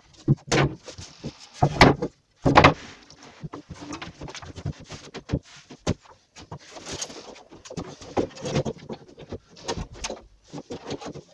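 Knocks, clatter and scraping as a cut-out piece of laminate chipboard worktop is lifted out of a freshly cut hob hole and a gas hob is then set down into the opening. The heaviest knocks come in the first few seconds.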